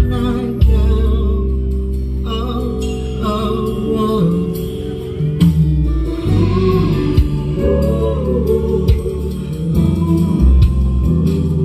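A song with singing played loud through a car audio sound system with a trunk-mounted speaker wall, heavy on the bass.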